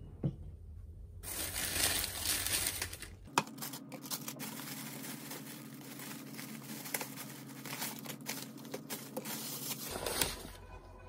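Thin plastic carrier bags rustling and crinkling as hands open them and lift out takeaway food, loudest between about one and three seconds in, with crinkling of a paper takeaway bag near the end.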